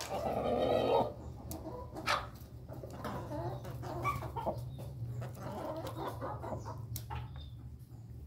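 Roosters clucking and calling while they peck at feed, with a louder call in the first second and sharp taps scattered through. A steady low hum runs underneath.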